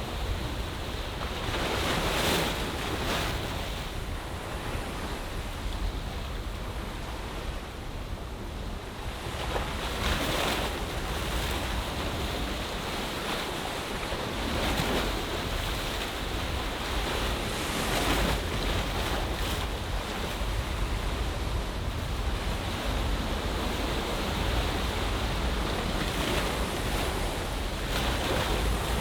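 Ocean waves washing into a bay, with a louder surge of breaking surf every few seconds over a steady wash, and a low wind rumble on the microphone.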